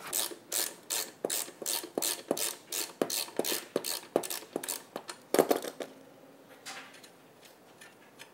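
Socket ratchet wrench clicking in an even run, about three clicks a second, as a bolt on a mobility scooter's transaxle is worked loose, then a single louder knock about five seconds in.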